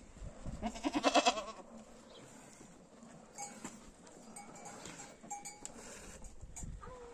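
A goat bleats once, loudly and with a wavering pitch, about a second in. Faint clinks of livestock bells follow a few seconds later.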